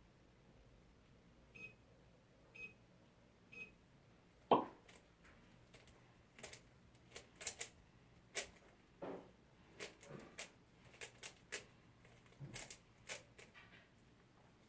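Three short beeps about a second apart from a cube timer, then a sharp click and a run of irregular clicks and clacks as a 3x3 Rubik's cube is turned during a timed solve.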